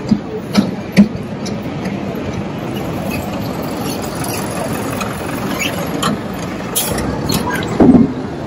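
City street traffic: a steady rumble of passing vehicles, with three sharp knocks in the first second and a louder low burst near the end.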